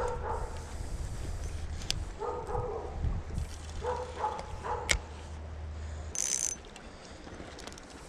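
A dog barking in short groups of two or three, with a brief high rasp about six seconds in.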